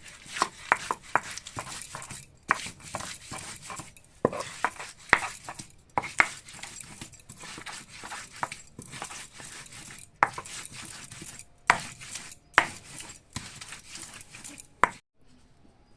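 Kitchen utensils knocking and scraping in an irregular run of sharp strikes with scraping between them, stopping shortly before the end.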